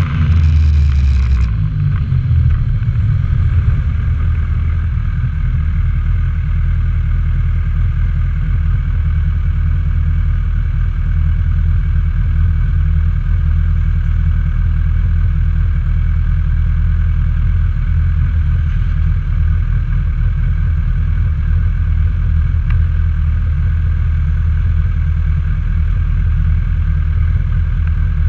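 Honda CB1000R's inline-four engine winding down as the bike slows, with wind rush that dies away about a second and a half in, then idling steadily while stopped.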